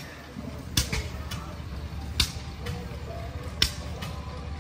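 Slow-running antique stationary engine firing: a sharp pop about every second and a half over a low, steady rumble.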